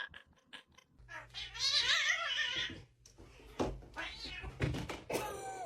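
A cat meowing: a few short ticks, then three drawn-out, wavering meows. The first meow, about a second and a half in, is the longest.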